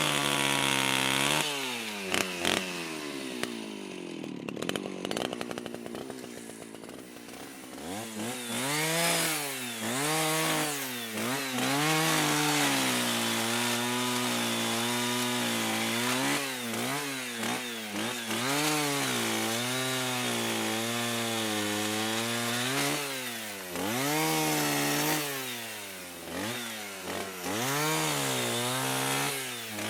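Petrol chainsaw engine revving, the throttle opened and released again and again so the pitch swings up and down. A few seconds in it falls back toward idle, then it revs up and holds high for a few seconds before more rises and dips.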